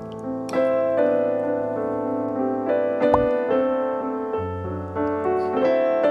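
Background piano music with slow held notes, and a brief click about three seconds in.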